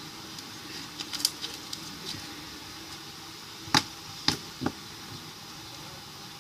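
Soft, slightly sticky butter slime squeezed and stretched by hand, giving a few small clicks and then three louder sharp pops close together about four seconds in.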